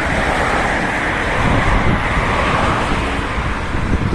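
Road traffic on a wet street: a car's tyre hiss swells and then fades over about three seconds. Wind buffets the microphone underneath.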